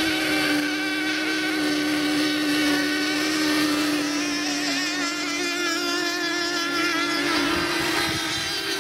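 Several nitro-powered Sport 40 RC racing boats running flat out, their small two-stroke glow engines giving a steady high-pitched whine. The pitch drifts slowly downward, and from about halfway through a second engine joins at a slightly higher pitch as the boats circle.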